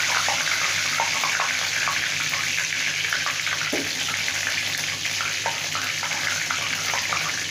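Green chillies and curry leaves frying in hot coconut oil in a kadai: a steady sizzle with scattered crackles and pops.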